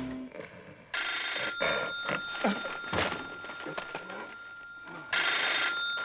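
Telephone bell ringing twice, a short ring about a second in and another near the end, about four seconds apart.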